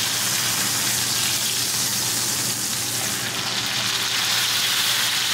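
Steak frying in a pan of hot butter and olive oil, a steady sizzle.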